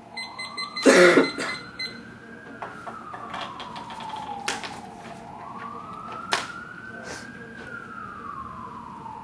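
Wailing siren of an emergency vehicle, its pitch slowly rising and falling about every four and a half seconds. A loud short noise comes about a second in, and scattered clicks and knocks run over it.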